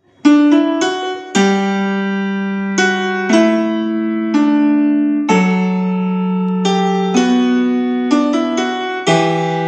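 Keyboard playing solo: a few quick notes, then sustained chords that change every second or two.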